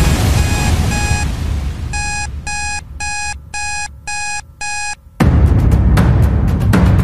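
Digital timer alarm beeping to signal that the exercise countdown has reached zero: two short beeps over background music, then a run of six evenly spaced beeps, about two a second. Loud background music comes back in near the end.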